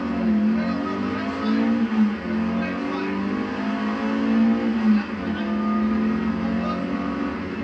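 Rally car engine heard from inside the cabin, accelerating hard. The pitch climbs, drops sharply at a gear change about two seconds in and again about five seconds in, then climbs again.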